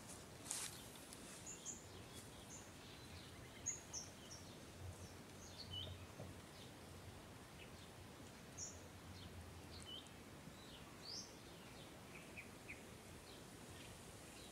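Faint, scattered short bird chirps and tweets from small birds, over a quiet background hiss.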